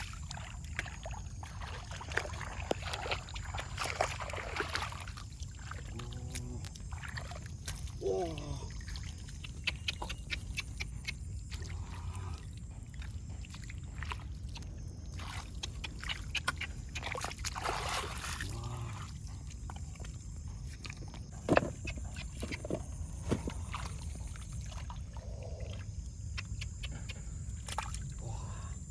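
Water splashing and sloshing in short irregular bursts, over a steady low rumble, with a single sharp knock about three-quarters of the way through.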